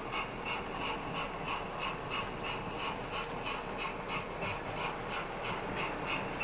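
Sound-fitted model steam locomotive chuffing steadily at about four beats a second over a soft hiss, running at a constant speed.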